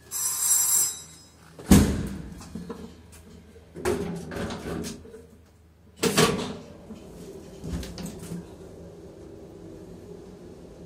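Doors of an old 1970s traction elevator: a short high ring of the alarm bell, then a door slamming shut about two seconds in. Some rattling follows, then a second loud slam about six seconds in.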